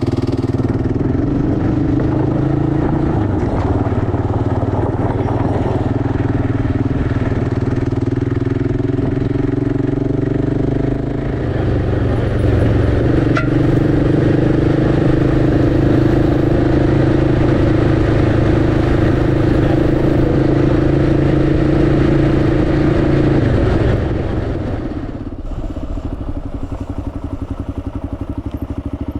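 Kawasaki KLR650's single-cylinder four-stroke engine running steadily while riding. The engine note dips briefly about eleven seconds in, then holds a little higher, and falls away and gets quieter about five seconds before the end.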